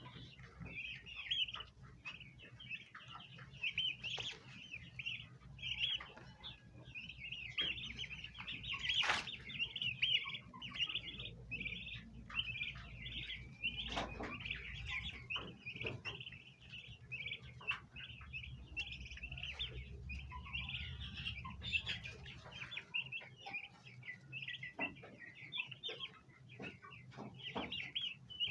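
A group of bronze turkey poults chirping continuously, many high peeps overlapping, with occasional sharp taps or clicks.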